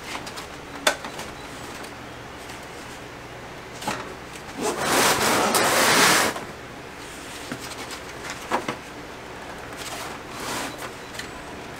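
Handling noises from bending the foam-insulated refrigerant line set out of the back of a mini split air handler: scattered light plastic clicks and knocks, with a loud rustle lasting about a second and a half near the middle.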